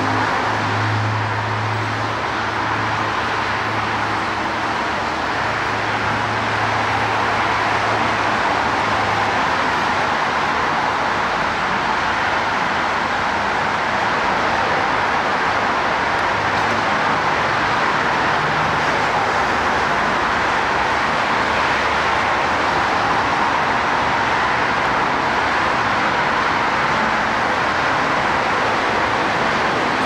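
Steady road traffic noise, with a low engine hum over the first several seconds that fades away.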